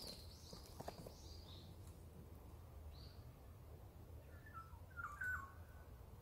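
Faint songbird calls: a quick run of short high chirps over the first second and a half, one more chirp a second later, then a few lower whistled notes that jump in pitch about five seconds in.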